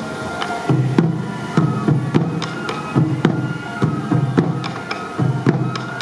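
Sansa odori festival music: taiko drums beating out a steady rhythm that comes in about a second in, with sharp clicking strikes and a held flute line above.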